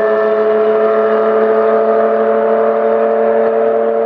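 Nissan Skyline C10 "Hakosuka" straight-six engine holding steady high revs as the car drives away down the road, its pitch sinking slowly.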